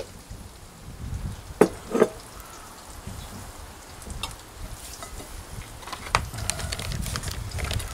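Soft handling sounds of a burger being assembled on a plate: a few light clicks and knocks, two sharper ones about one and a half to two seconds in and another near six seconds, over a low background rumble.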